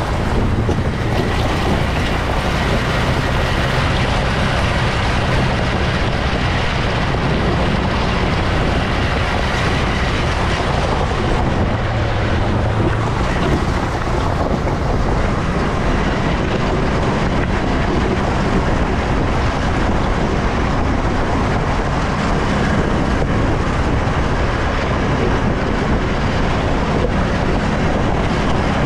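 ATV engine running steadily while riding, with wind noise on the microphone.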